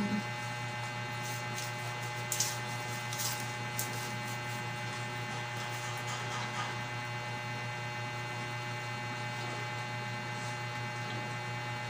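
Low steady electrical mains hum, with a few faint soft clicks about two to four seconds in.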